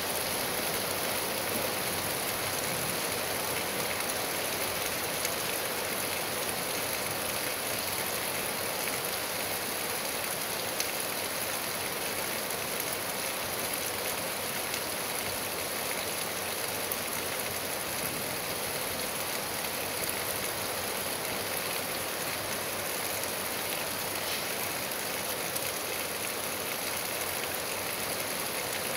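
Steady rain falling on grass and trees, an even hiss without let-up, with an occasional faint tick of a drop striking something close.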